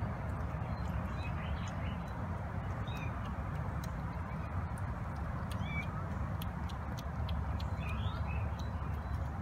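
Faint, short kitten mews now and then over a steady low rumble, with a few light clicks.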